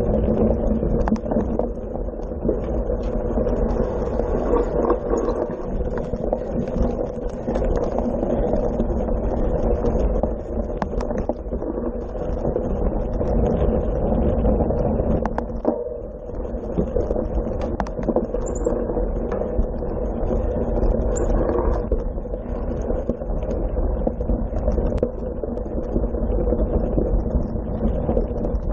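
Steady rumble and rattle of a cyclocross bike ridden fast over gravel and grass, heard through a camera mounted on the bike, with a few sharp clicks.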